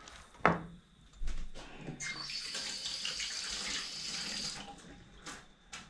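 Water running from a tap for about two and a half seconds, turned on about two seconds in and shut off abruptly. A sharp knock comes just before it, about half a second in, and is the loudest sound.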